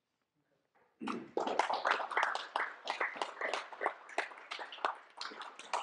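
Audience clapping, starting about a second in with a dense run of claps that thins out toward the end.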